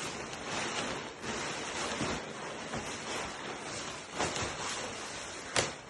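Nylon tent fabric rustling and swishing as a pop-up tent is twisted and folded down into coiled circles, with a short sharp snap about five and a half seconds in.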